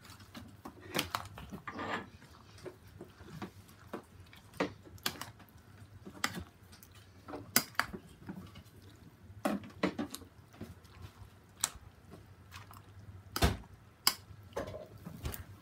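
A spoon stirring thick, mayonnaise-coated macaroni salad in a bowl. Wet squishing comes with irregular sharp clinks of the spoon against the bowl, and the loudest knocks fall near the end.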